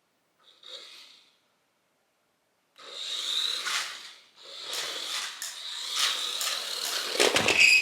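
WPL D12 remote-control truck driving on a hard floor: the small electric motor and gears whine along with tyre noise, briefly easing off about halfway. A run of sharp knocks comes near the end as the truck bumps into something.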